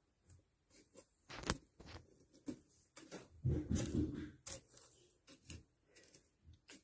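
Light taps and scuffs of a plastic toy horse figurine being moved over sand and against a cardboard box, with a louder rustling spell about halfway through.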